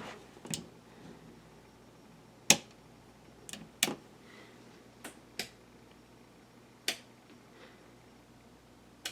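About eight sharp clicks at irregular intervals over the faint steady hum of a running 1984 Casablanca Four Seasons ceiling fan.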